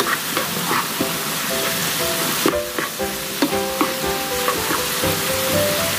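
Julienned zucchini sizzling in oil in a frying pan as it is stirred and tossed with a spatula, with a steady hiss and a few soft scrapes. Light background music with plucked notes plays along.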